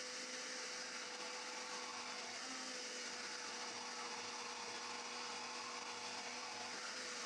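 Countertop kitchen blender running steadily at one speed, puréeing a thick mix of onion, garlic and honey.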